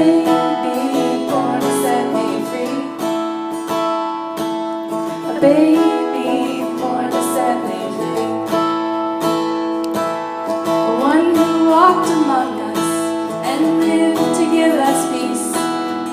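Acoustic guitar strummed steadily through an instrumental passage of a country song, with regular chord strokes.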